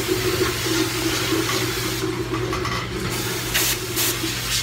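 Dental suction drawing air and fluid through a lighted isolation mouthpiece in the patient's mouth: a steady watery hiss over a steady humming tone, the tone stopping near the end.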